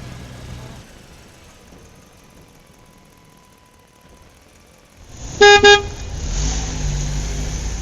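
Two short horn beeps about five and a half seconds in, followed by a low vehicle motor rumbling steadily.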